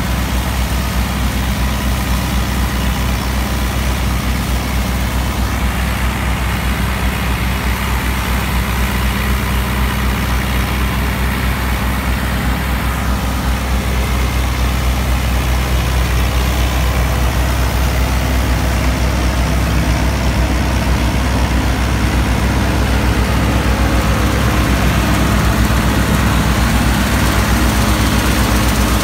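New Holland Dabung 85 tractor's 85 hp four-cylinder diesel running steadily under load, driving a wheat straw chopper through its PTO shaft. The chopper adds a steady rushing noise over the engine. The sound grows a little louder over the last third.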